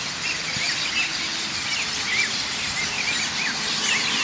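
Many birds chirping at once, a dense chorus of short repeated calls, over a steady background hum of city traffic.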